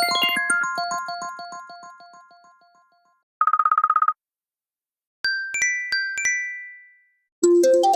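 A run of mobile phone ringtones and alert tones: a fast repeating electronic melody that fades out, a short rapidly pulsing electronic trill about three and a half seconds in, then a bright two-note chime played twice, and near the end another ringtone melody begins.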